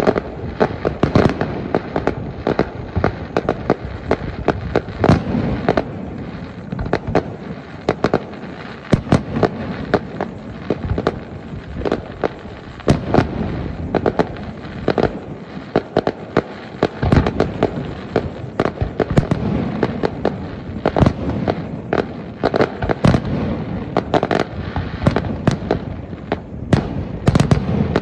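Aerial fireworks display: a rapid, irregular barrage of shell bursts and bangs, several a second, over a continuous rumble of crackling and echoing reports.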